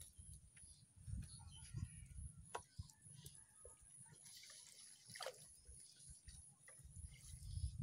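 Faint water dripping and trickling off a bamboo-framed lift net as it is raised out of shallow floodwater, with a few small ticks and knocks.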